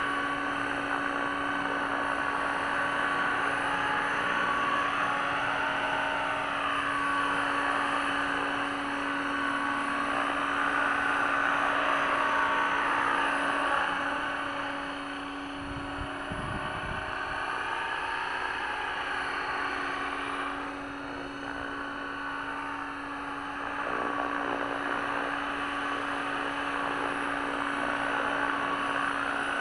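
500-size RC helicopter, a T-Rex 500 clone, hovering and flying low, giving off a steady mechanical whine from its rotor head and drivetrain. Several of the tones in the whine drift up and down in pitch.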